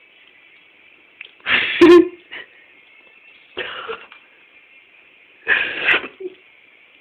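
A person's short bursts of stifled laughter close to the microphone, three of them about two seconds apart, the first the loudest.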